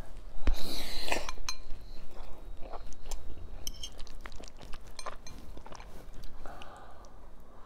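A forkful of ramen noodles slurped loudly about half a second in, then wet chewing with many short mouth clicks and a metal fork clinking against a glass bowl.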